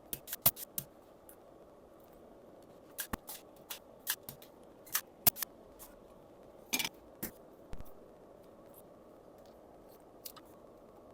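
Irregular sharp clicks and snips of small hand tools working on a circuit board as components are removed, bunched near the start and through the middle, over a faint steady hiss.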